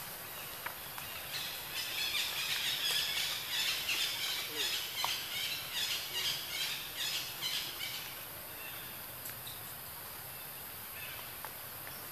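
Forest ambience: a steady high hiss, joined from about a second and a half in until about eight seconds by a louder, rapidly pulsing chorus of bird or insect calls.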